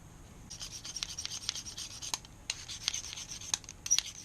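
Pocket knife blade being worked on a knife-sharpening system: a run of scratchy, rasping strokes starting about half a second in, broken by short pauses and sharp clicks.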